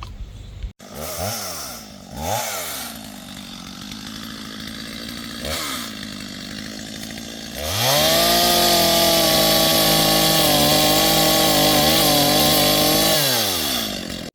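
Chainsaw engine idling, blipped three times in quick rises and falls, then revved up about eight seconds in and held at high speed for about five seconds before dropping back toward idle.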